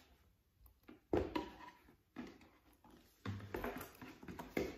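Handling noise from a handbag and a cardboard box being moved about: a few knocks and rustles, the sharpest about a second in.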